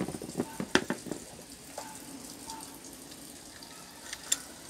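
Light clicks and knocks of an electric fan motor's metal parts being handled and fitted together, several in the first second or so and one more near the end, over a steady hiss.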